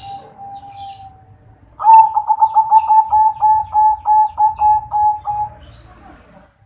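Zebra dove (perkutut) of a local × Bangkok cross singing: a loud, rapid run of coos, about four a second, lasting nearly four seconds after a faint drawn-out coo at the start. Faint chirps of small birds sound above it.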